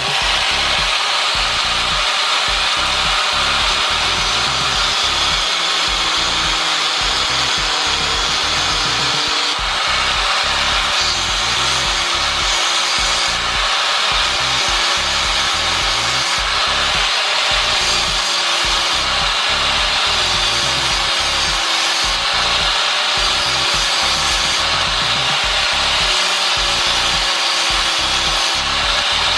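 Angle grinder running steadily with its disc cutting into a metal motorcycle brake lever: a loud, continuous grinding hiss over a faint, slightly wavering motor whine.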